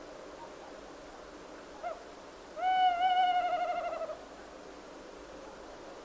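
Owl hooting: a short note about two seconds in, then a long, rapidly wavering hoot lasting about a second and a half that falls slightly in pitch, over a faint steady hiss.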